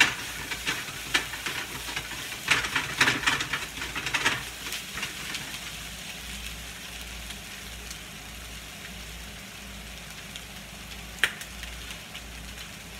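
Shredded rotisserie chicken sizzling as it browns in a nonstick frying pan. For the first four seconds or so a spatula scrapes and stirs it, then it settles into a steady sizzle. There is a single sharp click near the end.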